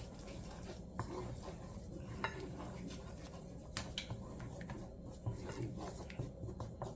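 A utensil stirring a coconut-milk curry in a nonstick pot, with scattered light clinks and knocks against the pot.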